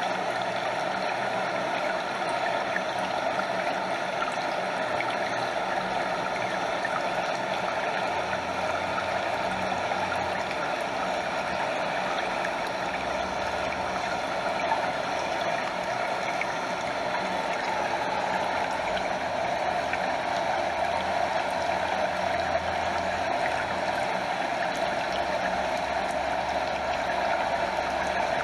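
Stream water flowing steadily over a small waterfall, a constant rushing with water lapping close by.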